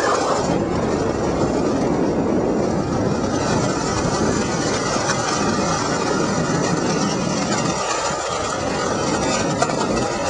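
RipStik caster board's wheels rolling over asphalt strewn with sand and salt: a steady rolling noise.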